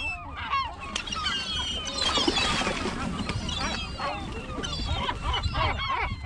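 A flock of birds calling over one another: many short, overlapping calls that bend in pitch, over a steady low rumble.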